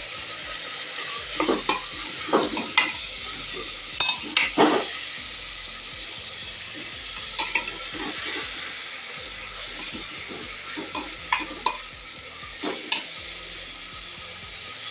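Cauliflower and tomato frying in oil in an aluminium pressure cooker, a steady sizzle, with a wooden spatula scraping and knocking against the pot at irregular moments as the sabzi is stirred.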